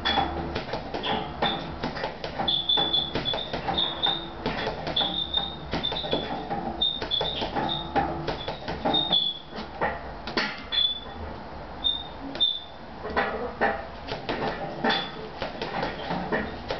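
Gloved punches thudding into a hanging heavy punching bag in quick, irregular combinations, with short high squeaks between the blows. The punches come thickest near the end.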